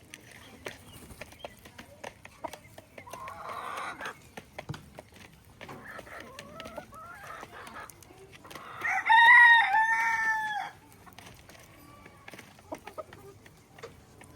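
Chickens clucking, with a rooster crowing loudly for about two seconds starting about nine seconds in.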